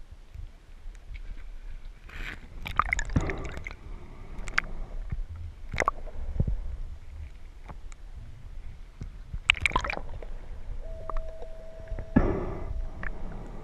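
Scuba diver's regulator heard underwater: exhaled bubbles rush out three times, about every four to six seconds, with a few sharp clicks between and a short steady tone near the end.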